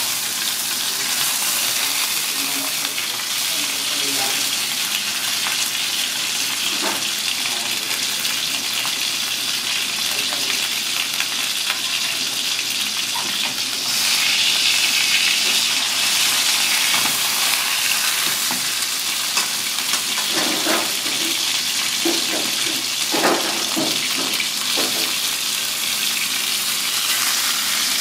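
Whole striped surgeonfish frying in oil in a wok: a steady sizzling hiss that gets louder about halfway through, with a few light knocks in the second half.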